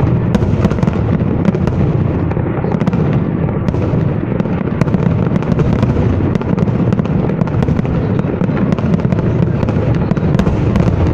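A continuous fireworks barrage: deep booms of shells bursting overlap one another, with many sharp crackles and pops scattered throughout.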